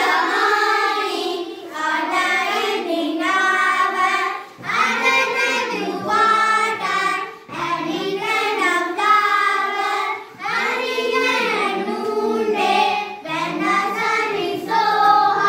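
A group of young children reciting the English watering rhyme in unison as a sing-song chant, line by line, with a short break between lines.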